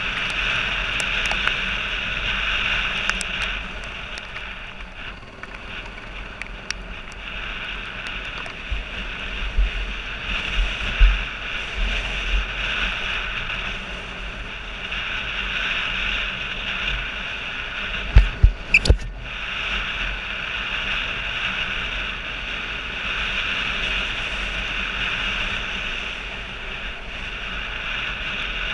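Motorcycle riding on a rough dirt track, its engine running steadily under wind rush on a helmet-mounted camera. A short cluster of sharp knocks and thumps comes about two-thirds of the way through.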